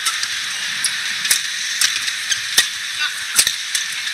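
Badminton rally: sharp racket strikes on a shuttlecock trading back and forth, roughly two a second, over a steady background hiss.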